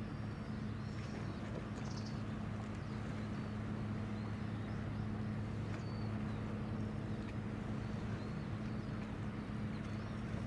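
Osumi-class tank landing ship's diesel engines running underway: a steady, even low drone with a deep hum, heard across the water.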